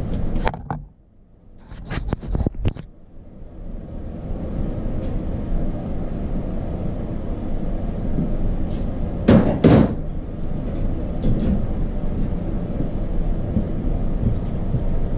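Workshop noise: a few sharp knocks and clunks, the loudest two close together about halfway through, over a steady low rumble that sets in a few seconds in.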